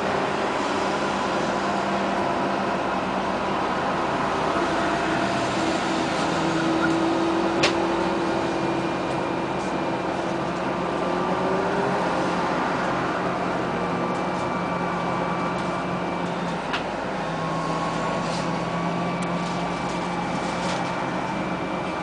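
Bogdan trolleybus on the move, heard from inside: the electric drive's whine of steady and slowly gliding tones over tyre and road noise. A sharp knock comes about seven and a half seconds in, and a smaller one about seventeen seconds in.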